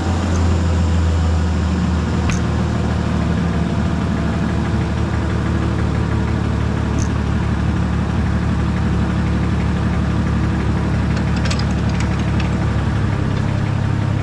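Minneapolis Moline G900 tractor's six-cylinder LP-gas engine running warm, with new exhaust manifold gaskets, being throttled down toward a low idle. Its steady note drops a little about thirteen seconds in.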